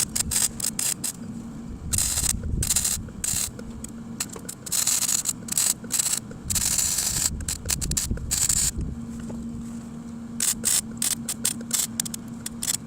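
Eastwood MIG 135 welder arc crackling and spattering on a rusty steel exhaust pipe, in short bursts that stop and start several times as holes are patched. A steady low hum sounds in the pauses between bursts.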